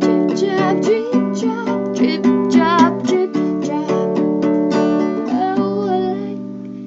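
Small acoustic string instrument being plucked in a quick run of notes, an instrumental close to a song, fading out near the end.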